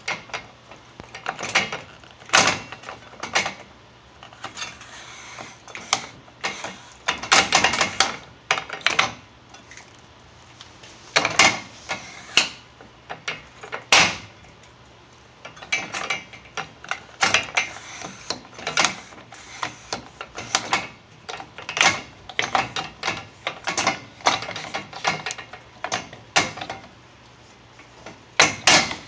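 Plastic latch and hinge of a white pressure-mounted safety gate clicking and knocking as it is worked by hand and the gate is swung open and shut: a long run of irregular sharp clicks, some in quick clusters.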